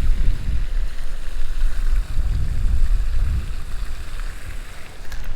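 Wind buffeting the microphone: a loud low rumble that swells and eases in gusts.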